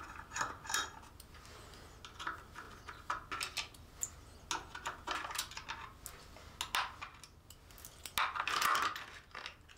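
Small metallic clicks and scrapes from a 4mm Allen key being turned and reset in the bolt heads of a motorcycle's lower fender cover as the bolts are undone. A longer scrape comes about eight seconds in.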